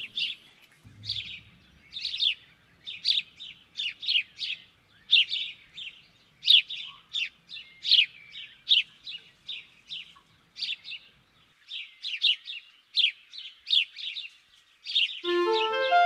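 A small songbird chirping over and over: short, sharply falling chirps, about two to three a second. Gentle chiming music comes in just before the end.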